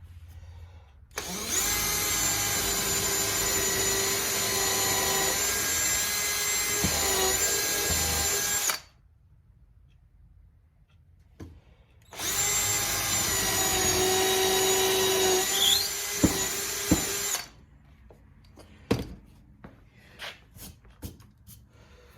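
Electric drill running steadily, boring holes into a wooden block: two runs of about seven and five seconds with a pause between them. A few light knocks follow near the end.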